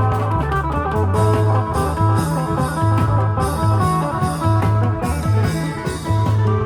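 Thai klong yao band music playing continuously: a plucked-string melody over deep bass notes and a steady drum rhythm.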